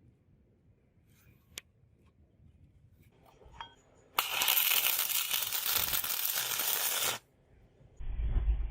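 Metal jingling and rattling for about three seconds, starting sharply and cutting off suddenly, after a single faint click.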